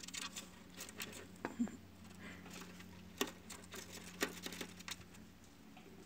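Faint, scattered soft clicks and rustles as adult budgerigars shift about in the nest bedding over their newly hatched chicks, over a faint steady low hum.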